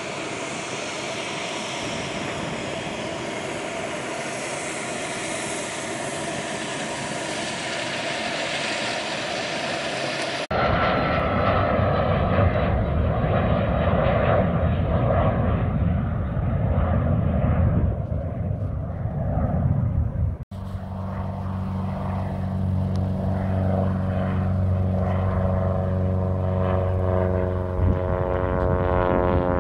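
Small single-engine propeller airplanes droning as they climb out and fly over, the sound cutting abruptly twice. In the last stretch there is a steady low engine-and-propeller hum whose tone shifts toward the end as the plane passes.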